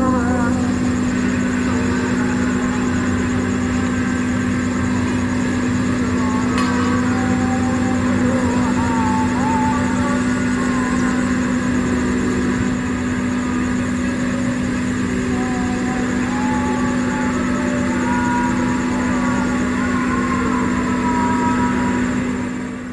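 A heavy engine running steadily with a constant low hum, its pitch unchanging throughout.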